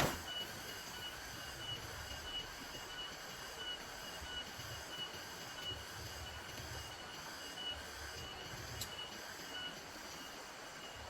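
Steady rain falling, with a thin, high tone pulsing evenly over it and a low rumble coming and going underneath.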